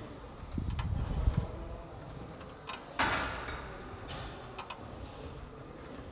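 Barbell and weight plates in a gym: a low rumble of thuds about a second in, then one sharp metal clank about three seconds in, with a few light ticks.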